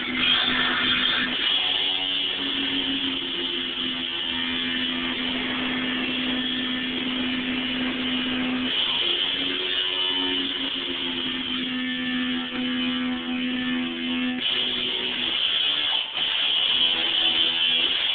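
Background music with guitar, long sustained notes over a dense, bright layer.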